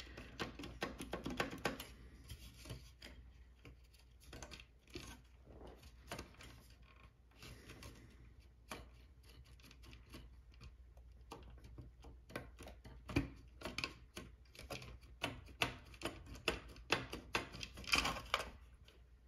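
Hands working the circuit board of a 1981 Standard Electric TLF 300 telephone loose from its plastic base: a scattering of light plastic clicks and knocks, coming faster and louder in the second half.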